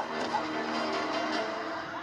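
Music with held, steady tones.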